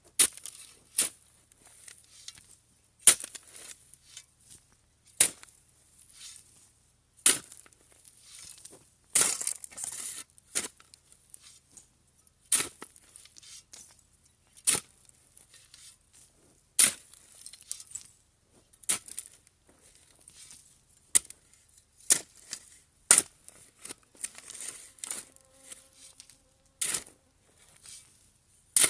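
Sharp knocks or strikes on a hard surface, repeating at a steady working pace of about one every two seconds, with faint scraping and crunching between them.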